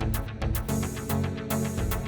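Background music: an electronic pop track with a steady beat and heavy bass.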